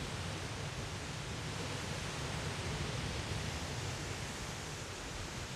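Steady rushing of running water in a water garden, an even hiss with no breaks.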